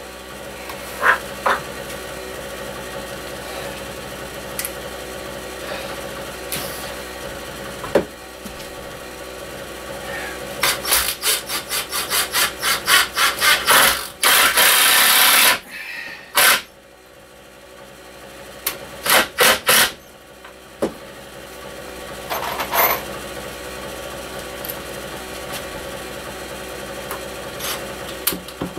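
Rasping strokes on wood: a quick run of about three or four strokes a second starting about ten seconds in, then a couple of seconds of continuous rasping, with a few more strokes later on.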